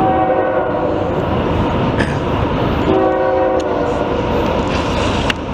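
An approaching train's locomotive horn sounds two blasts, each a chord of several notes: the first lasts about a second, and a shorter one comes about three seconds in. The train's heavy rumble runs underneath.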